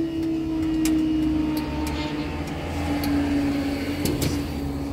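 Cars pulling away and driving slowly over a level crossing just after the barriers have lifted, over a steady hum that drifts slightly lower. A few sharp clicks sound about a second in and again just after four seconds.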